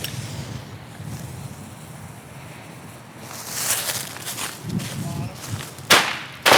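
Small consumer fireworks going off: a hissing fizz starts about halfway through, then two sharp bangs near the end, about half a second apart.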